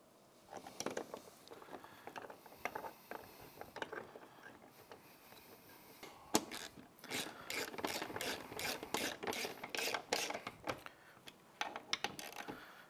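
Hand ratchet clicking as it drives M6 bolts into a door frame to fasten a mirror bracket. The clicks come sparsely at first, then in quick runs through the second half.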